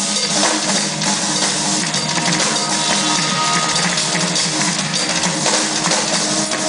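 DW drum kit played live at full tilt: dense drumming with constant cymbal wash and bass drum, over a backing track with sustained notes.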